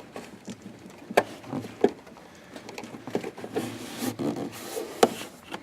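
A rubber grommet being pushed by hand into the plastic washer fluid reservoir: scattered clicks and knocks with rubbing and short squeaks of rubber on plastic.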